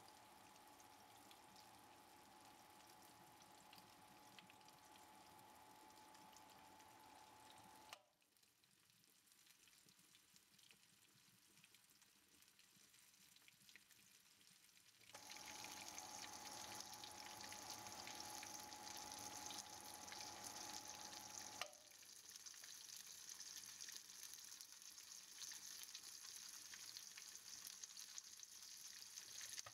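Faint sizzling and crackling of oil around a panko-breaded hamburger patty frying in a pan. It drops quieter for several seconds after a cut and comes back louder, and a thin steady whine runs under it in some stretches.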